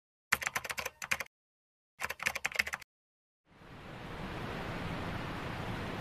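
Two short bursts of rapid typewriter clicking, then a steady rush of falling water fades in about three and a half seconds in.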